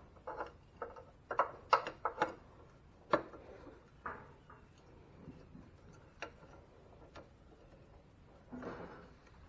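Crescent wrench clicking and clinking against a bolt on a small engine as it is snugged up: a quick run of sharp metal clicks in the first couple of seconds, then single clicks every second or so.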